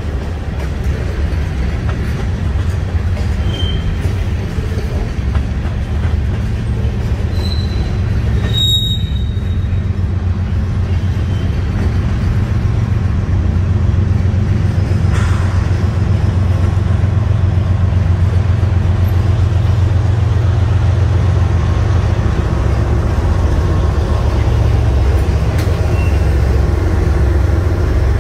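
Freight train rolling past with a steady low rumble of cars on the rails. Brief high wheel squeals come about nine seconds in, and a single sharp clank a few seconds later. The rumble grows louder through the second half as a diesel locomotive draws up and passes close by.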